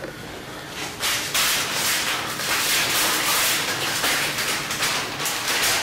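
Paper rustling and crinkling: an envelope being opened and a letter unfolded. It starts about a second in as a dense, crackly rustle and stops abruptly at the end.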